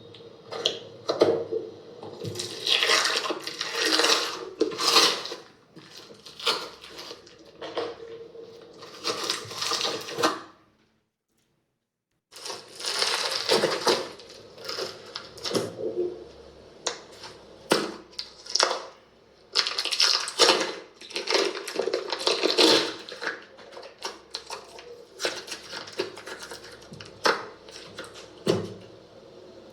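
Slime being squeezed and pressed by hand, giving irregular bursts of clicky crackles and pops. Everything cuts out for about a second and a half around the middle.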